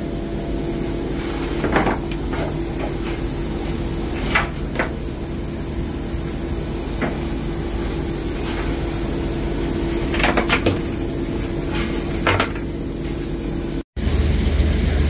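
Cab of the steam locomotive 34072 257 Squadron: a steady hum and hiss from the live engine, with scattered short metallic clanks and knocks from the footplate fittings. About 14 s in it cuts to a louder, steady rumble and hiss of steam escaping beside the locomotive.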